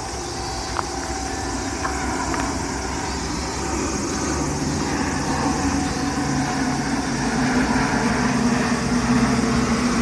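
Steady outdoor rushing noise with a low engine-like hum, getting a little louder in the second half.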